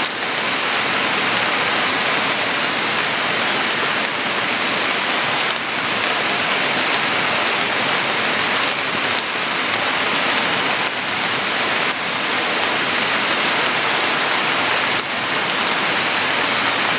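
Steady rain falling, an even hiss with no distinct drops or knocks.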